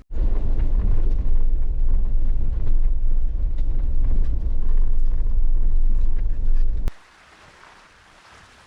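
Loud, heavy low rumble of a Jeep driving the slushy snow trail, with wind buffeting the microphone. It starts suddenly and cuts off abruptly about seven seconds in, leaving only a faint hiss.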